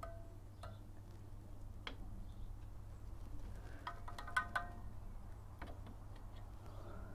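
Light metallic clicks and clinks of pliers working a drum-brake shoe hold-down spring and pin onto the backplate, with a short burst of ringing clinks about four seconds in.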